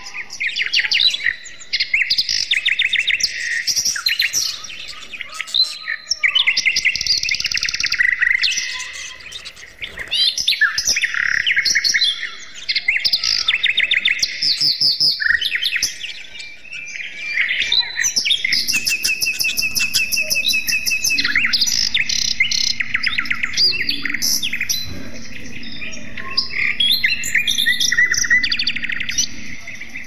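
A group of caged budgerigars chattering and warbling, a dense run of quick overlapping chirps with a short lull about a third of the way in. A faint low hum sits under the second half.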